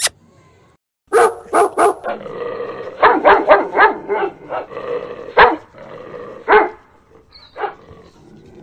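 Puppies play-fighting: three quick high yaps, then a string of short barks and yips over low growling, with a few single yaps near the end.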